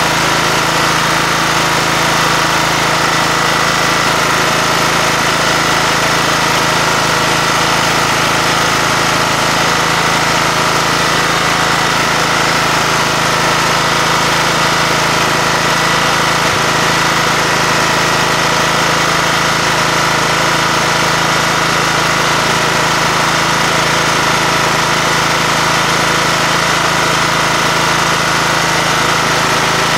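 Kohler engine of a John Deere LT150 riding mower running steadily at idle, freshly reassembled after a head gasket job and sounding sound.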